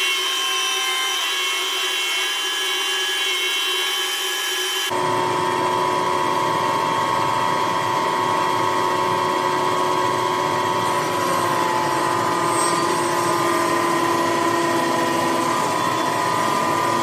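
Bandsaw running steadily while resawing a white cedar log into square timbers, a continuous machine whine over sawing noise. About five seconds in the sound changes abruptly, becoming fuller and lower with a strong steady hum.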